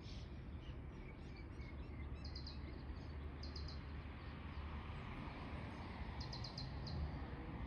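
Small birds chirping in short runs of quick high notes, a few times, over a steady low outdoor rumble.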